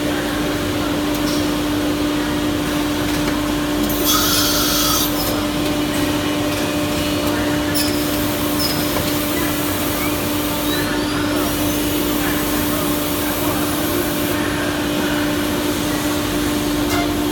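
CNC router's spindle running with a steady hum over workshop machine noise, with bursts of hiss about four seconds in and again through the middle.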